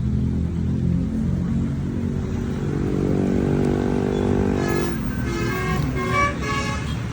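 Bus engine running, then a multi-tone telolet bus horn: a held chord from about three seconds in, followed by a run of higher notes stepping in pitch like a short tune.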